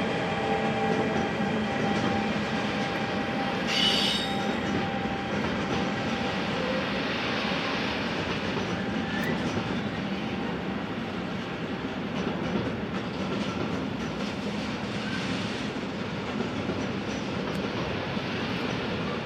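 Train rolling through track switches, the steady rumble of its wheels overlaid with thin high-pitched wheel squeal. A short, louder high squeal comes about four seconds in.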